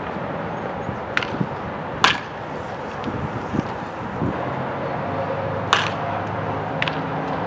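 Baseball bat striking pitched balls during batting practice: two sharp cracks of contact about three and a half seconds apart, the first the loudest, with a couple of fainter clicks near them.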